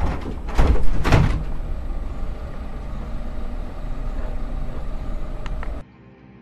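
Two heavy thumps about half a second apart, then a steady low rumble that cuts off suddenly near the end.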